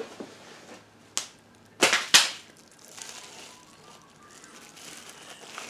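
Cosmetic packaging being handled: a short sharp snap about a second in, then two louder crackling rustles close together a second later, then faint rustling.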